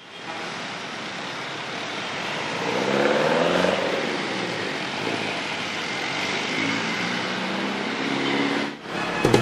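City street traffic: a steady wash of noise from passing cars and other motor vehicles, with engine sound swelling about three seconds in and again near the end.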